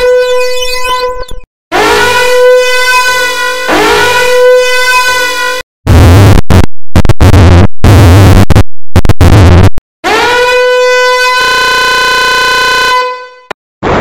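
Electronic alarm-horn sounder (the 'danger alarm' meme sound effect) playing as a loud, buzzy blare whose pitch swoops up into a steady tone. It comes as a run of edited variations: the tail of one blast, then two long blasts. Next comes a distorted, bass-heavy version chopped into rapid stuttering bursts, then another long blast that turns flat and steady before it stops near the end.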